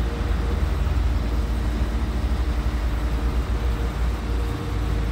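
Petrol station fuel pump running as petrol is dispensed into a car's tank: a steady hum over a low rumble.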